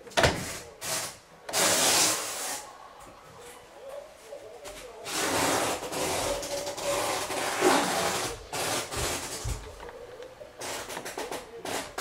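Handling noises from a refrigerator's top door hinge and wiring: a cable and the metal hinge bracket rubbing and scraping against the plastic and sheet-metal cabinet, with a few small knocks. A longer stretch of scraping comes about five seconds in.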